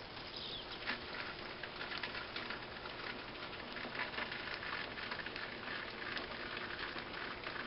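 Homemade rain system in a chameleon enclosure running, water droplets pattering steadily on the leaves and vines, picking up about a second in.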